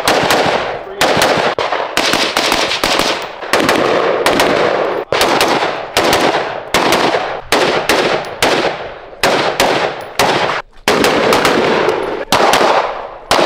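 Rapid gunfire, mostly from AR-15-style rifles fired shot after shot, about two to three shots a second, each shot trailing off in a short echo.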